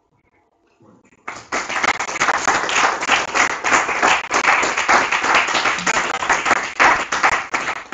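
A group of people applauding, starting about a second in, with loud, dense clapping.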